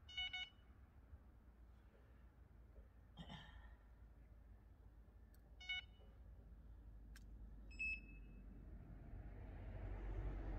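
Electronic bite alarm on the rod rests giving short beeps three times, near the start, about six seconds in, and about eight seconds in, the last on a different, higher tone, as the line is handled.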